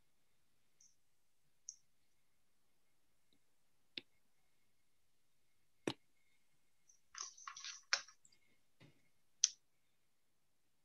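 Scattered faint clicks and brief rustling picked up over a video-call line: single sharp clicks a couple of seconds apart, then a quick cluster of clicks and rustles about seven to eight seconds in, and one more click near the end.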